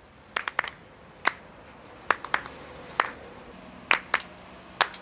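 Hand claps from a small group of people: about a dozen sharp, single claps at an uneven beat, some in quick pairs and threes.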